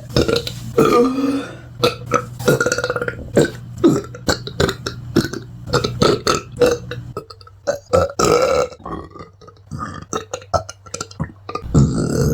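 A person burping over and over: a rapid string of short burps, with a few longer drawn-out ones among them.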